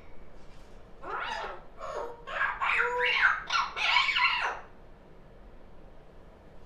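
Pet parrot chattering: a string of short, loud calls starting about a second in and stopping after about four and a half seconds.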